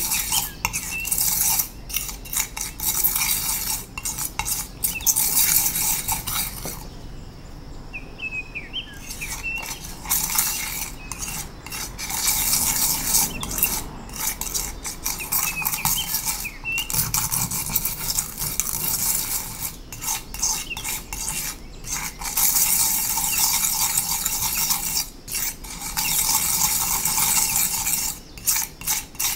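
Metal palette knife scraping and smearing a wet pigment-and-water paste across a smooth tile, in repeated strokes with short pauses and a quieter stretch about seven seconds in: blending powdered pigment into watercolour paste.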